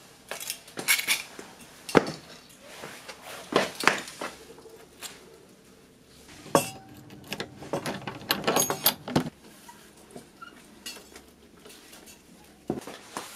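Metal hand tools clinking and rattling as they are handled and taken down from nails on a wooden post: a series of sharp clinks and knocks in clusters, with a busy run of them between about 7 and 9 seconds in.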